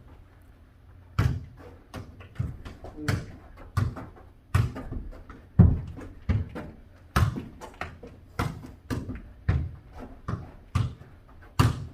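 A ball being kicked and bouncing on a hard floor in a foot-volleyball rally: a quick series of sharp thuds, about two a second, starting about a second in, with a small-room echo.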